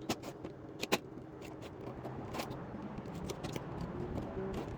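Plastic parts of a box fan being handled and fitted back into place: a few sharp clicks and knocks, the clearest about a second in, over a steady low background rumble.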